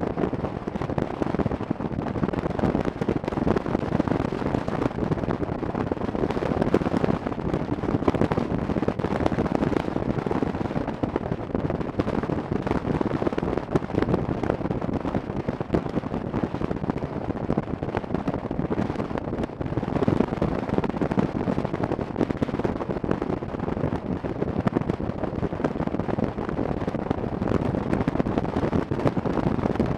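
Wind buffeting the microphone of a camera on a moving motorcycle: a steady, loud rumble full of rapid crackling pops, with road and engine noise beneath it.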